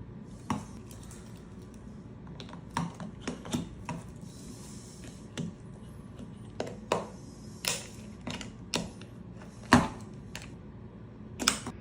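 Irregular sharp metallic clicks and taps, about fifteen spread unevenly, as a tin can of beans is worked open with a can opener.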